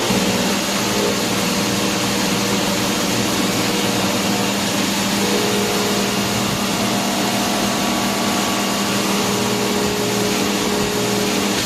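CNC laser cutting machine running while it cuts steel sheet: a steady rushing hiss with a low, even hum underneath, and a second hum tone coming in about halfway through.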